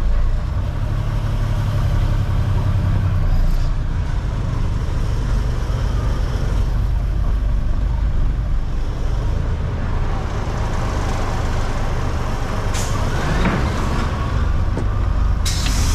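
Tractor-trailer truck's diesel engine running at low revs while reversing slowly, heard from inside the cab. Near the end there is a sudden sharp hiss of air from the air brakes.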